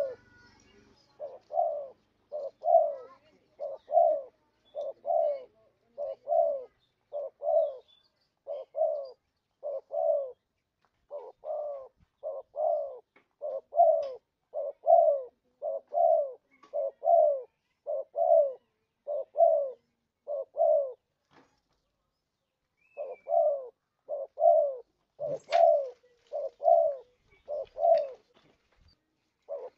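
Spotted dove cooing: short, falling coo notes repeated more than once a second, with a pause of about two seconds about two-thirds of the way in.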